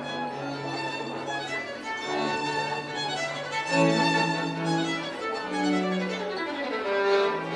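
Violin music with lower strings beneath it, a slow melody of long held notes.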